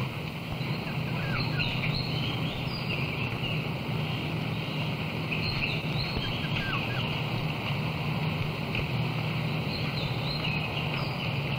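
Outdoor rural ambience: a steady hiss with a low hum under it, and birds giving short chirping calls a few times.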